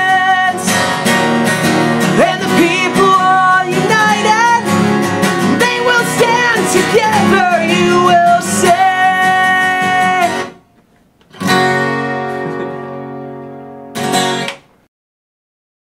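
Acoustic guitar strumming the outro of a song, with a bending melody line over the chords. The playing stops about ten seconds in, then a final strummed chord rings out and slowly fades, followed by one short last strum that cuts off abruptly.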